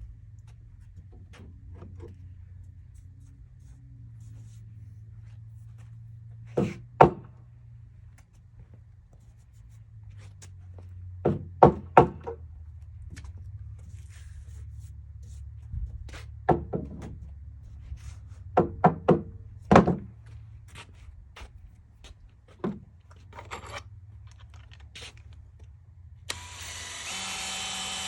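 Scattered sharp knocks and clunks of the 4x4 studs and clamps being handled and tightened, some in quick pairs and triplets. Near the end a power drill starts running steadily, beginning to drive the fasteners that join the two studs.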